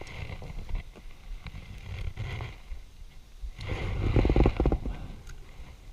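Close handling noise: a hand and arm moving right by the camera, rubbing and knocking against it and the inflatable kayak, over a low rumble. About four seconds in, a louder creaking rub lasts roughly a second.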